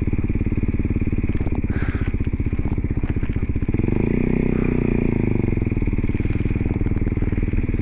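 Kawasaki Z125's 125 cc single-cylinder four-stroke engine running through an Arrow sport exhaust at low speed, with a steady thudding pulse. The engine note swells and shifts briefly around the middle, then settles back.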